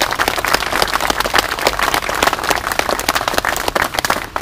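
A crowd applauding: dense, irregular clapping that dies away just before the end.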